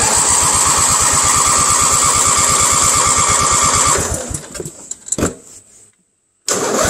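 The starter of an MTD Yard Machines riding mower is cranking the engine with a steady whine and an even, rapid chugging beat, but the engine does not fire. The cranking winds down about four seconds in, and a similar engine sound starts again near the end. The owner puts the hard cranking down to a too-tight new 75-inch drive belt and a struggling battery.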